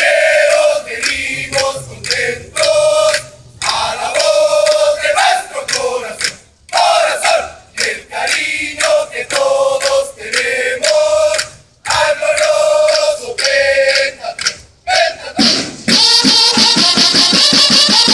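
Drum and bugle band playing: the bugles sound short repeated phrases with brief pauses between them, over snare drums. From about sixteen seconds in, the snare drums and bugles play on without a break.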